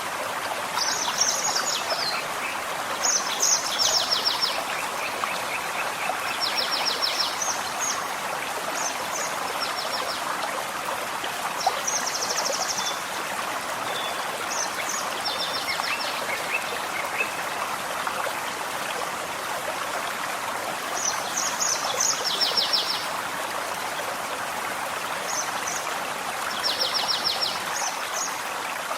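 Gentle forest stream running steadily, with a songbird singing short high phrases and quick trills every few seconds.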